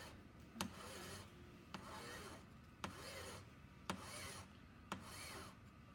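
Hand file rasping across the end of a silver ring strip held against a table edge, in slow, even strokes about one a second, each stroke with a small click. The filing squares the strip's ends flat and perpendicular so the seam closes without gaps for silver soldering.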